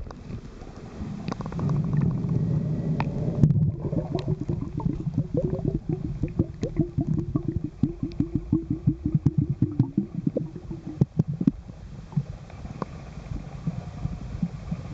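Muffled low rumble and gurgling of water heard through a camera held underwater, with a run of rapid, evenly spaced low pulses, about six a second, from a few seconds in until near the end.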